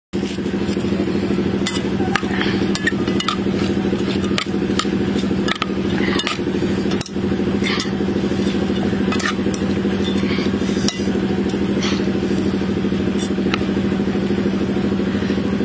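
A spoon and chopsticks clink and scrape against a metal bowl as a salad is tossed, in irregular sharp clicks. A steady low mechanical drone runs throughout and is louder than the clinks.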